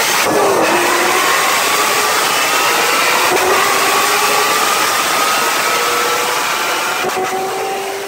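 Heavy wind and road rush past an open car window at speed, with a car engine's note climbing slowly underneath and then levelling off.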